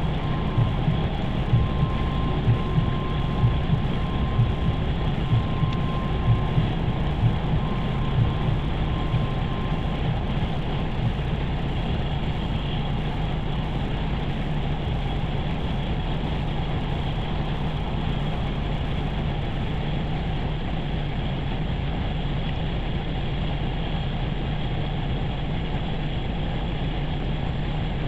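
A steady low mechanical rumble, like a vehicle engine running, with a soft pulse about once a second that fades out after about ten seconds.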